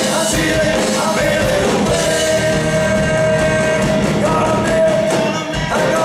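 Live rock band playing: lead vocals over electric guitars, bass, keyboard and drums.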